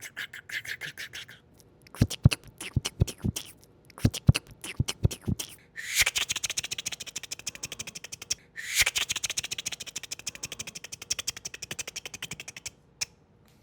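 Mouth sounds imitating typing on a keyboard: a handful of separate clicks and pops, then two long runs of rapid clicks like fast typing, ending with a single last click like a key being struck.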